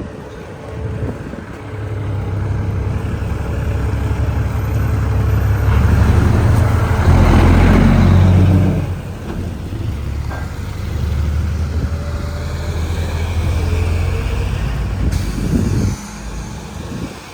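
Large truck engines driving past close by. One grows loud and is loudest about seven to nine seconds in before dropping away, then another truck engine runs on more quietly until near the end.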